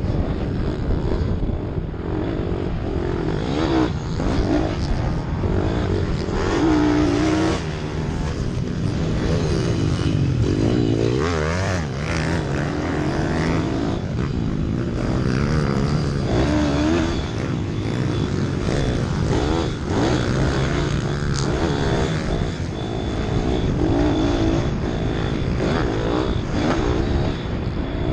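Racing minibike engine heard from the rider's helmet, revving up and dropping back again and again as the bike accelerates, shifts and slows for the turns of a dirt track.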